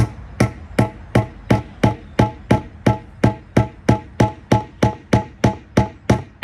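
Claw hammer tapping steadily on a push pin in the mast cap at the end of a Sunfish's aluminum mast, about three light strikes a second, each with a short metallic ring. The pin isn't going through because the cap's hole doesn't line up with the mast's rivet hole.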